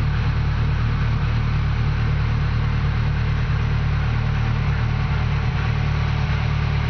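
Car engine idling steadily at about 1,000 rpm shortly after a cold start. The owner calls it a little on the noisy side and is recording it for lifter noise.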